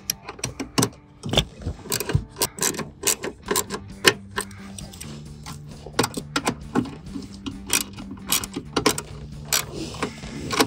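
Small hand ratchet clicking in short, irregular runs as it turns a bolt.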